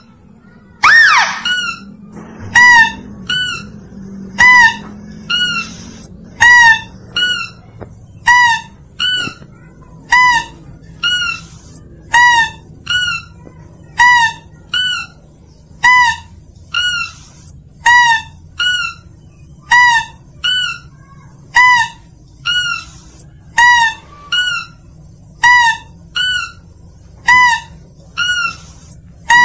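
Mouse-deer (kancil) lure call: short, squeaky, hooked calls repeating about once a second, alternating a louder lower call with a softer higher one, with a longer falling squeal about a second in.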